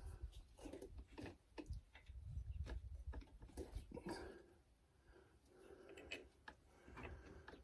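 Faint, irregular clicks and taps of hand work on the bolts of a pickup's sway bar bushing brackets as they are threaded in.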